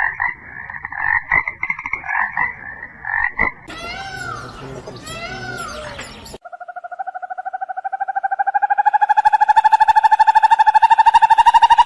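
Frog calls in three spliced clips: a run of short repeated croaks, then a few arching chirps, then a long fast pulsed trill that swells in loudness and creeps up in pitch.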